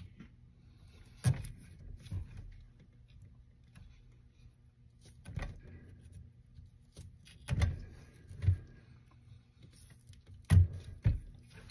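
Pliers or a wrench working the brass connector on the end of a push cable: scattered clicks and knocks of small metal parts a few seconds apart, with a pair of louder knocks near the end.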